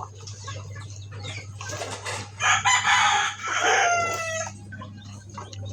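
A rooster crowing once, a harsh, loud crow that starts about two seconds in and ends with a falling pitch.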